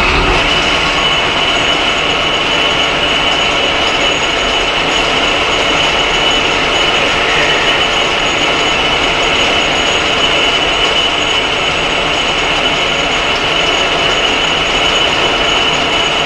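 Clausing 1500 metal lathe running steadily at speed during a facing cut: a constant busy mechanical gear noise with a steady high whine on top.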